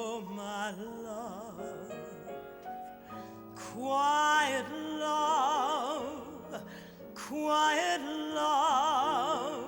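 A singer holding long notes with wide vibrato over instrumental accompaniment in a slow ballad, the voice coming in strongly about four seconds in and swelling again near the end.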